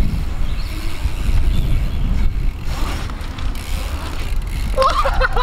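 Bicycle riding through a concrete skatepark: a steady low rumble of tyres rolling. A voice begins near the end.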